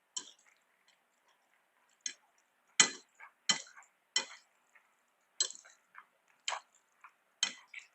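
A person eating close to the microphone: a series of short, sharp clicks and smacks, about eight in all, irregularly spaced about a second apart.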